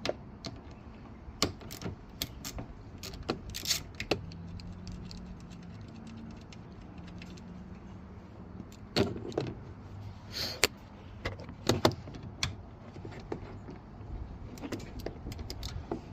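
Irregular clicks, knocks and light metallic clinks of hand tools and parts being handled while working on a car door mirror, louder in short clusters a few times.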